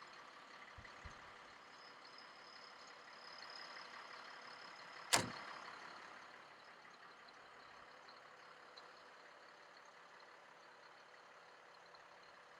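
Faint steady background noise with one sharp, loud bang about five seconds in.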